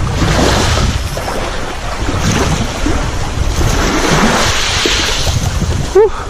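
Wind buffeting the microphone over the wash of sea waves, a rumbling hiss that swells and eases twice. A brief voice sound comes near the end.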